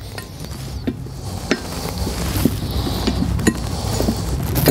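Steel parts of a ProPride 3P weight-distribution hitch bar being handled on a table: scattered metal clicks and knocks with rubbing as the shank plates are shifted to line up a bolt hole.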